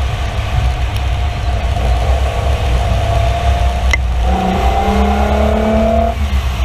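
1974 Ford Capri Mk2 3.0 Ghia's Essex V6 engine running on the move. The note climbs as it accelerates from about four seconds in, over a heavy low rumble of wind and road on the outside-mounted camera.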